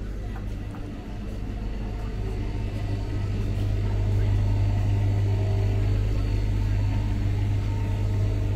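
A vehicle's low, steady rumble with a faint hum above it. It grows louder over the first few seconds, then drops away suddenly at the end.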